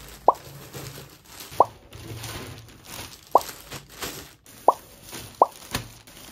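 Five short, identical bubble-like pop sound effects, about one to two seconds apart, added in editing to mark each item as it is counted. Faint plastic mailer bags crinkle under the hands between the pops.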